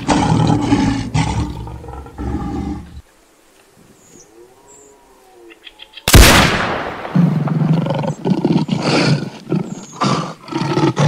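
Lion growling and roaring, then a single loud gunshot about six seconds in that fades away over about a second, followed by more growling from the lion.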